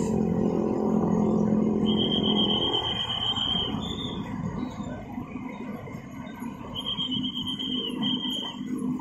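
Road traffic crossing the rails: a truck engine runs loudly and fades away after about three seconds, then the lighter sound of motorcycles passing. A high steady trill comes and goes over it.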